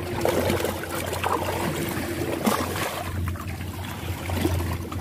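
Water trickling and splashing, over a steady low hum.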